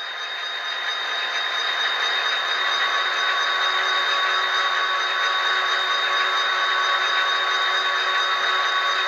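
Tsunami sound decoder's diesel dynamic brake effect in an HO-scale Athearn GP49: the grid blower fans spool up over the first couple of seconds, then hold a steady whir with a hiss.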